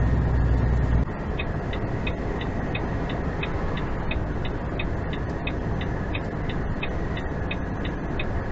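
Steady engine and road noise inside a moving vehicle's cab, with a regular ticking about three times a second. A heavy low rumble cuts off about a second in, after which the ticking starts.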